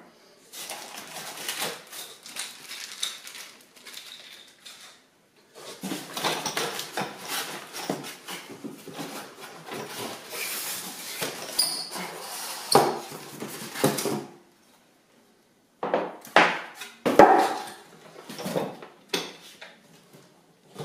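Rustling and scraping of a cardboard box and its styrofoam packing blocks as they are pulled apart, then several sharp knocks and clatters as the pedestrian traffic signal housing is lifted out and handled.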